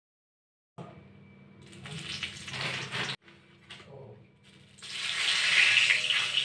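Hot oil in a metal kadai sizzling as a dried red chilli and then bay leaves are dropped in. The sizzle starts about a second in, breaks off sharply near three seconds, and is loudest from about five seconds in.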